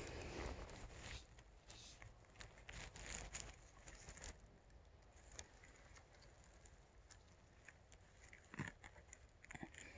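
Faint crackling and rustling of dry forest-floor litter, busiest in the first few seconds, then near quiet with a couple of soft snaps near the end.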